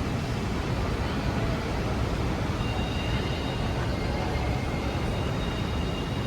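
Steady street traffic noise, a low rumble under a continuous hiss, with a faint thin high-pitched whine coming in about halfway through.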